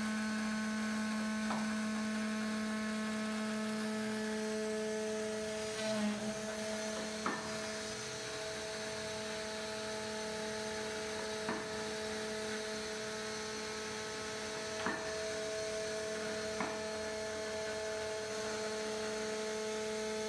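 CNC router spindle running steadily as its quarter-inch bit cuts 1/8-inch 5052 aluminium sheet, a steady hum of several held tones. Several short sharp ticks break through it at intervals.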